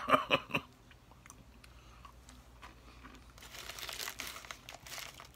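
A few chewing and mouth sounds at the start, then a plastic wrapper crinkling for about two seconds from a little past three seconds in.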